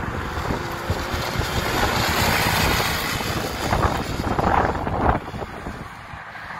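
Small quad bike (ATV) engine accelerating along a dirt track, growing louder toward the middle and dropping away about five seconds in, with wind buffeting the microphone.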